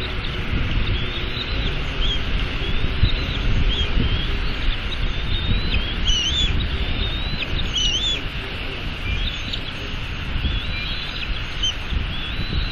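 Two bald eagle chicks peeping in repeated short, high, wavering chirps as they beg while being fed. The chirps are busiest about halfway through. A steady rushing of wind and rain on the microphone runs underneath.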